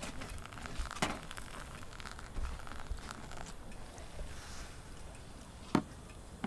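A thin stream of hot water poured onto ground coffee in a paper pour-over filter, stopping after a few seconds, then the wetted grounds blooming with a faint fizzing crackle. Two sharp clicks, one about a second in and a louder one near the end.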